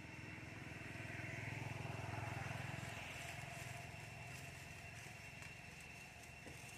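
A distant motor vehicle passing: a low engine hum swells about a second in and fades away over the next few seconds, above a thin steady high tone.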